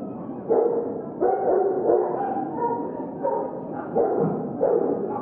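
A dog barking over and over, about one bark every two-thirds of a second.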